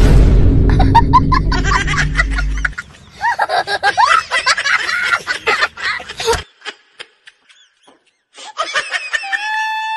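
Laughter, a dense run of giggling and snickering that lasts about six seconds, over a low steady hum for the first few seconds. After a short lull, a held electronic tone begins near the end.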